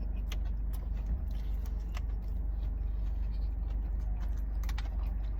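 Quiet chewing of a bite of hot chicken sandwich: faint, scattered mouth clicks over a steady low hum.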